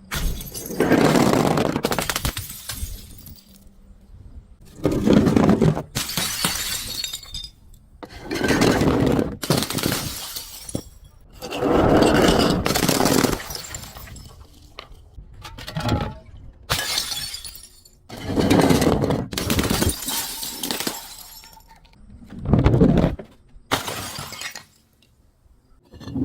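Glass bottles being crushed and shattering: a series of about ten separate crunching breaks, each lasting a second or two, with short pauses between them.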